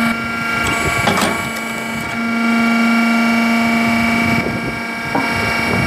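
Hydraulic log splitter running with a steady machine hum, with a few short knocks of wood about a second in.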